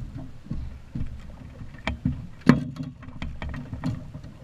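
Several sharp knocks and thumps on a small fishing boat as a fish is brought aboard, the loudest about two and a half seconds in, over a low steady rumble.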